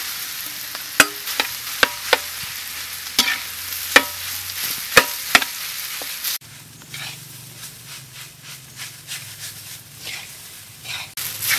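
Fried rice being stirred in a wok: a metal spatula scraping and clanking against the pan over a steady sizzle of frying. About six seconds in the sound drops abruptly quieter, with softer scrapes going on, then comes back louder near the end.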